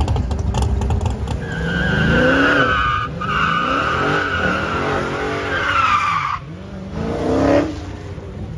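Dodge Challenger doing a burnout: its rear tyres squeal in a long, wavering screech over the V8 engine revving, with a couple of abrupt breaks in the sound.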